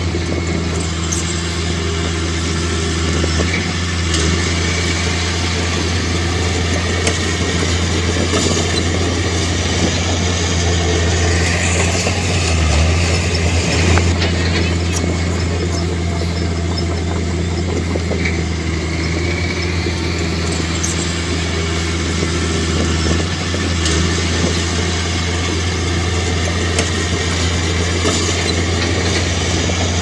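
Crawler bulldozer's diesel engine running steadily with a deep, even hum, and a few brief high squeals now and then.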